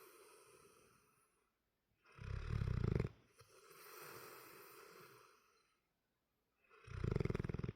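Snoring in a slow rhythm: two loud, rattling, low snores about a second long each, roughly five seconds apart, with softer breathy exhales between them.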